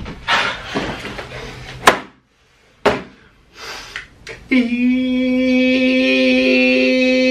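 Scuffling, voice-like sounds and sharp knocks, the loudest a single click about two seconds in, then a brief hush and another knock. From about halfway through, a steady held musical tone with a low drone and overtones takes over at a constant level.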